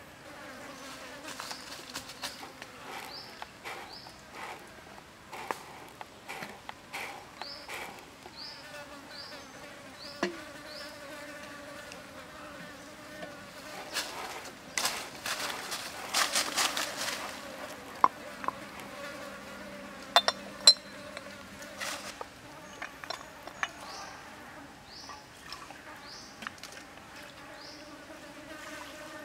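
Insects buzzing steadily in a low drone, with scattered small clicks and short high chirps. About halfway through, a few seconds of rustling, as of bare feet on dry leaves.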